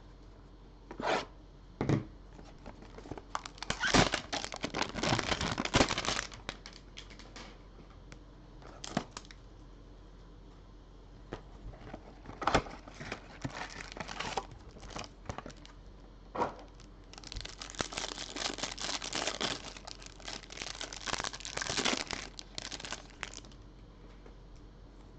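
A cardboard trading-card hanger box being torn open by hand and its contents unwrapped: two long spells of tearing and crinkling, a few seconds in and again in the last third, with short sharp snaps between.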